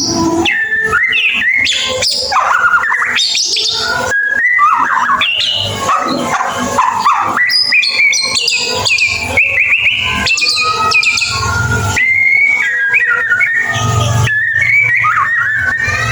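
White-rumped shama singing without a break: a fast, varied stream of clear whistles, rising and falling slurs, and chattering notes.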